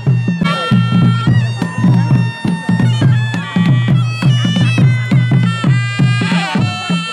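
Background music: a melody of held notes that step up and down, over a steady, quick drum beat.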